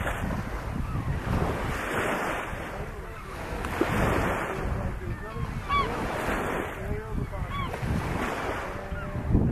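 Wind buffeting the microphone in gusts that swell and fade about every two seconds, with a few faint bird calls in the middle.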